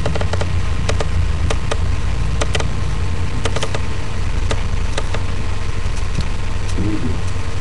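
A steady low hum, like a machine or electrical hum picked up by a built-in microphone, with scattered sharp light clicks in the first half.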